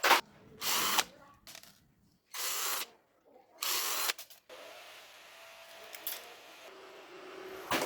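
Small power tool run in three short bursts, each under half a second, after a sharp click at the start.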